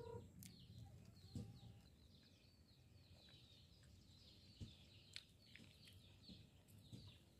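Near silence with faint chickens clucking and chirping, and a few soft knocks.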